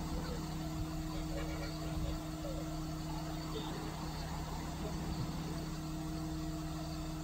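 HAM STC500C truck crane's engine running at a steady speed, a constant hum with no change in pitch.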